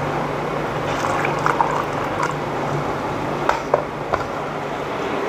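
Tomato-based stew simmering in an enamelled pot on a gas burner: a steady bubbling hiss, with a few short pops between about one and four seconds in.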